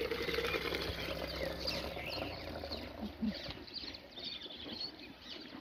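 A cow's urine stream running into a plastic jug, dying away after about two seconds, with small birds chirping throughout.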